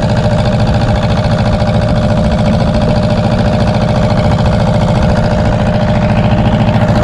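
Fishing boat's diesel engine running steadily, a fast even beat with a steady whine over it.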